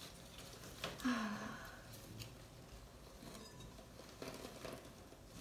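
Faint rustling of pothos leaves and potting soil with small clicks as hands work a loose cutting back into a pot, with a short falling sigh about a second in.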